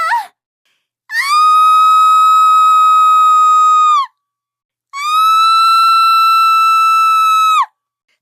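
Two long, shrill screams from a sound-effect pack, each held at a steady high pitch for about three seconds and dropping in pitch as it cuts off. Just before them, a short cry ends.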